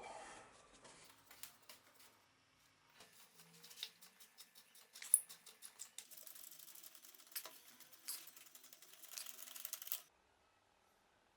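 A quick, irregular run of small clicks and light metal taps from hand work with tools and parts on a workbench, stopping abruptly about ten seconds in.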